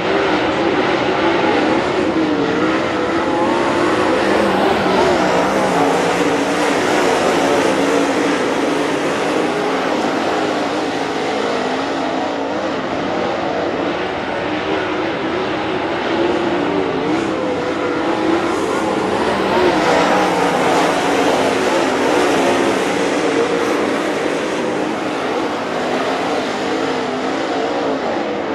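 A field of dirt late model race cars racing around a dirt oval. Their V8 engines blend into a loud, steady roar whose pitch keeps wavering up and down.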